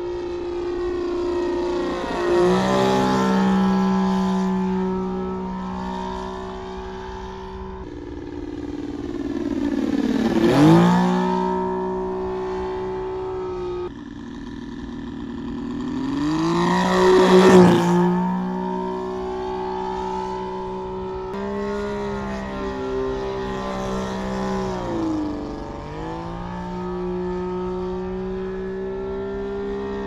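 Saito FG-33R3 three-cylinder radial engine on an RC model biplane, running steadily in flight. It passes close several times, and the engine note swoops down in pitch as it goes by, loudest about ten and seventeen seconds in.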